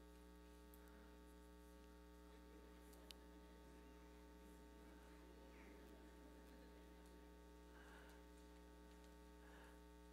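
Near silence with a steady electrical mains hum and a faint click about three seconds in.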